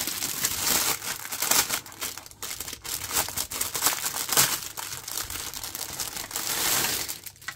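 Clear plastic kit bag crinkling and rustling as a large plastic sprue is slid out of it by hand, dying down near the end.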